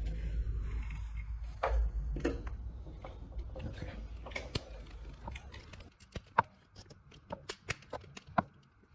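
Low handling rumble as a GFCI receptacle and its wires are worked by hand. From about six seconds in come a run of small sharp clicks as a screwdriver tightens the terminal screw down on the neutral wire.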